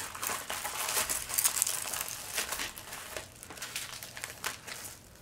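Paper wrapping and a diamond painting canvas crinkling and rustling as they are rolled up by hand. The crackles are busiest over the first couple of seconds, then thin out and grow fainter.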